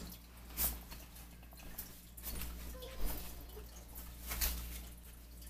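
Faint scattered taps and rustles of a person moving about out of shot, over a low steady room hum.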